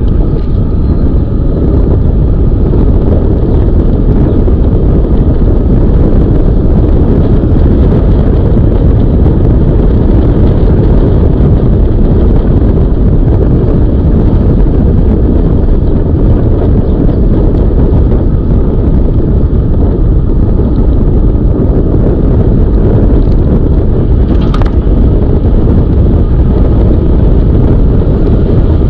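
Loud, steady rush of wind over the microphone with tyre and road rumble from a moving Zooz e-bike, and a brief sharp click about 24 seconds in.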